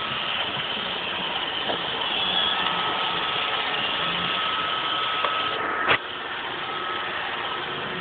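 iRobot Roomba robot vacuum running: a steady whirring hiss with a thin high whine from its motors and brushes. A single sharp click about six seconds in, after which the running noise is a little quieter.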